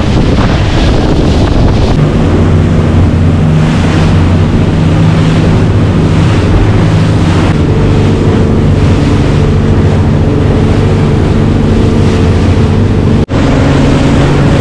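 Boat under way: an outboard engine running at a steady pitch, with heavy wind on the microphone and water rushing past the hull. The engine's steady tone comes in about two seconds in, and the sound cuts out for an instant near the end.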